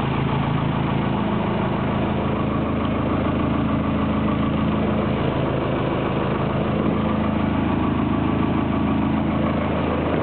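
Small fishing boat's engine idling, a steady low drone that holds even throughout.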